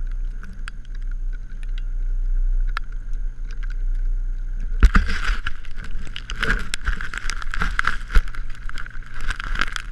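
Snowmobile engine running steadily. From about five seconds in, a rough clattering and rustling noise with many sharp clicks joins it.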